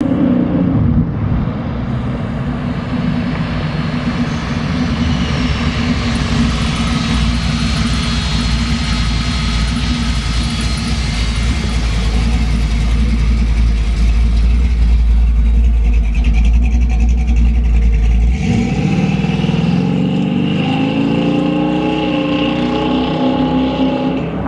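1966 Chevrolet Nova's 408 cubic-inch small-block V8, with a solid-lifter cam, Hooker headers and dual exhaust, rumbling as the car drives slowly by. About three-quarters of the way through, the engine revs up and its pitch rises as the car pulls away.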